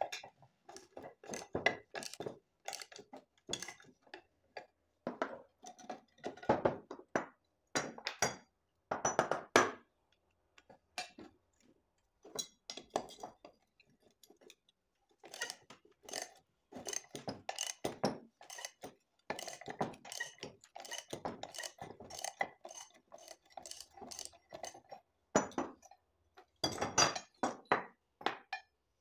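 Socket ratchet wrench clicking and metal parts clinking as the bolts of an old bench vise are undone and its pieces taken off, in quick irregular clicks with a lull of a few seconds about a third of the way through.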